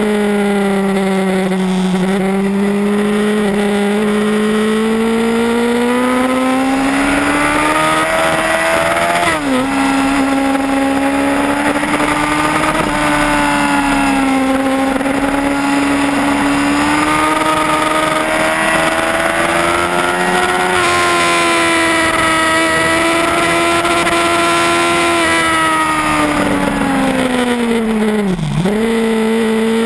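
Yamaha R1's inline-four engine pulling hard on track, heard onboard. Its revs climb steadily, drop quickly and pick up again about nine seconds in as it changes gear, then hold high and climb gently before easing off, with another quick drop and recovery in revs near the end. Wind rush sits under the engine note.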